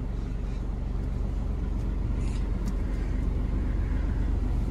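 Hino 500 truck's diesel engine idling steadily, heard from inside the cab.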